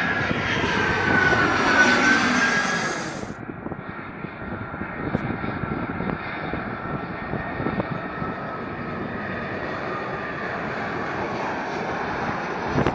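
Twin-engine jet airliners on landing approach. One passes close overhead with a loud engine whine falling in pitch, cut off abruptly a little over three seconds in. Then another approaching jet's engines give a steadier, quieter rumble with a faint high whine.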